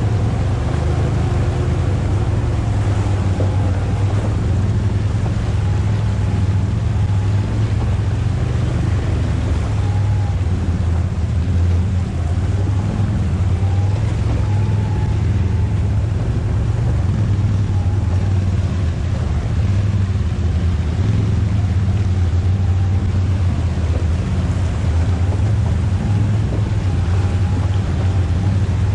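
ATV engine running steadily at an even low pitch, with a constant rushing noise over it.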